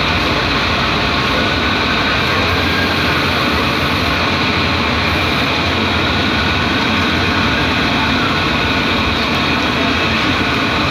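Steady running noise of a city transit bus, a constant drone with a faint high hum, heard inside the cabin.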